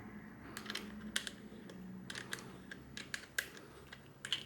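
Irregular small clicks and taps of hands handling a Yashica Super YXL-1.1 Super 8 camera, working its lid and switches.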